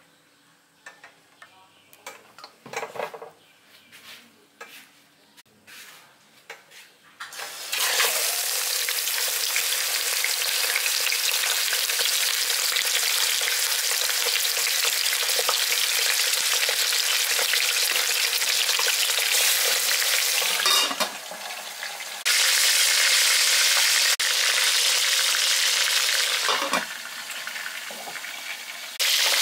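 Whole chicken sizzling in hot oil in an aluminium pot. A few quiet knocks of handling come first, then the loud steady sizzle starts about a quarter of the way in and runs on, dropping lower twice for a second or two, the second time near the end.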